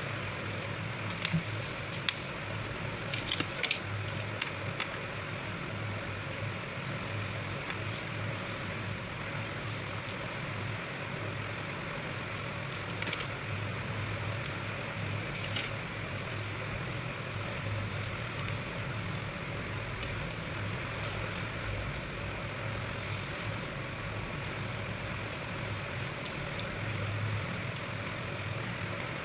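Steady background noise with a low hum, broken by a few light clicks in the first few seconds.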